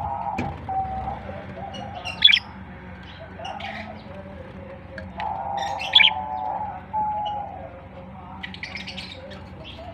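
Pet budgerigars chattering and warbling, with two loud, sharp chirps, one about two seconds in and one about six seconds in.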